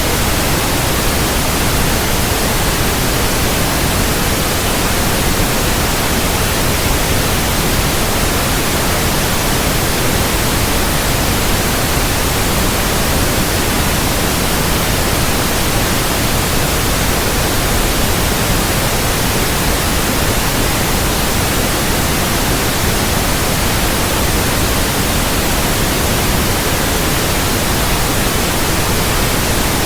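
Steady, unbroken white noise, loud and even across all pitches with no changes, played as a sleep aid to calm crying infants.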